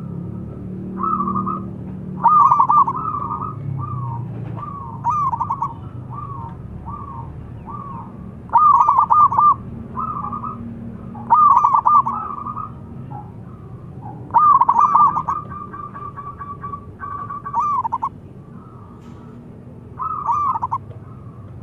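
Zebra dove (perkutut) cooing: repeated phrases of quick, stuttering coo notes every few seconds, some loud and close, others fainter between them.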